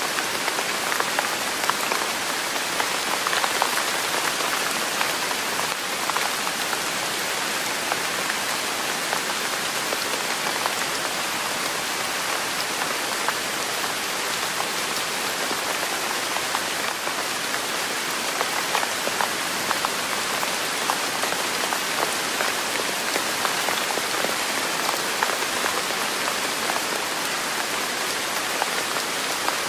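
Steady rain: an even hiss with many small drop ticks, unchanging throughout.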